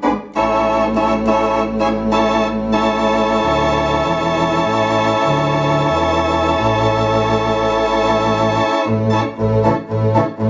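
Allen digital theater organ played on two manuals: one long held chord with a wavering vibrato over a bass line that moves through several notes, giving way near the end to short detached chords.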